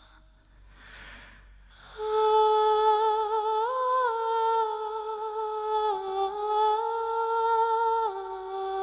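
A high voice humming a slow, wordless melody in long held notes with vibrato. It comes in about two seconds in, after a short pause.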